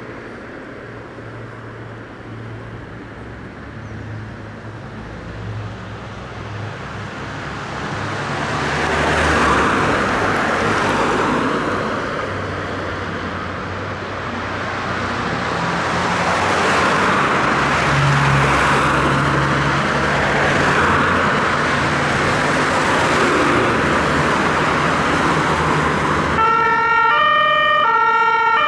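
A convoy of fire engines approaching on an emergency call: engine and road noise build up. About two seconds before the end, a German two-tone siren sounds loud and clear, stepping back and forth between its two pitches.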